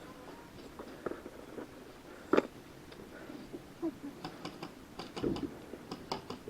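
Scattered sharp pops of airsoft gunfire in an indoor arena: one loud crack about two and a half seconds in, then a quick run of shots and clicks in the last two seconds.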